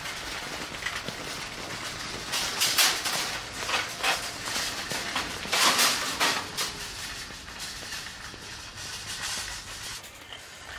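Metal shopping trolleys rattling as they are pushed along, with two loud clattering bursts about two and a half and six seconds in, then a quieter rattle.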